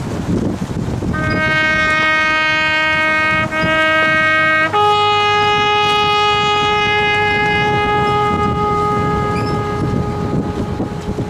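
Boat horns sounding long single-note blasts. The first runs for about three and a half seconds, then a higher-pitched horn takes over and holds for about six seconds.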